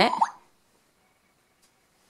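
A short electronic beep from the Botley coding robot toy, a steady tone that ends in a quick rising chirp as a code is transmitted to it, followed by near silence.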